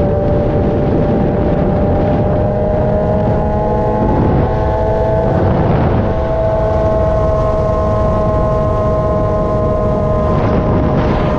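Kawasaki ZX-636R inline-four sport-bike engine in a TRX450R ATV running steadily, its pitch drifting slowly up and down.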